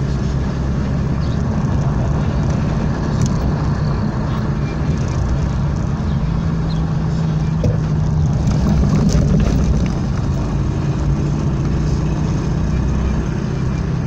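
Engine hum and tyre noise of a moving car heard from inside its cabin, steady, swelling a little for a couple of seconds near the middle.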